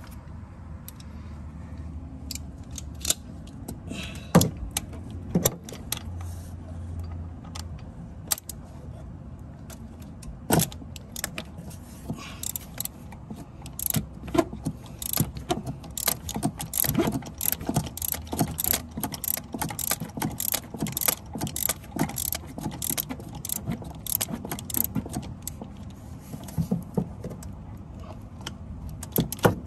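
A 3/8-inch socket ratchet turning a 5/8 spark-plug socket on an extension, loosening a spark plug in a V6 cylinder head. There are scattered metal clicks and knocks at first, then rapid runs of ratchet clicks from about twelve seconds in.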